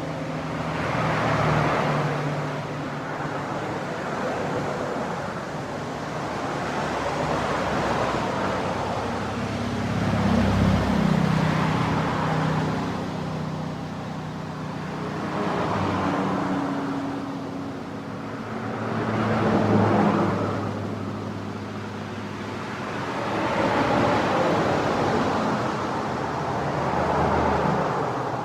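Cars passing on a two-lane road at about 40–50 mph: a steady wash of tyre and engine noise that swells and fades as each vehicle goes by, one every few seconds.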